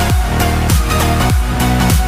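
Electronic dance music with a deep bass drum hit repeating about every 0.6 seconds over a sustained bass line.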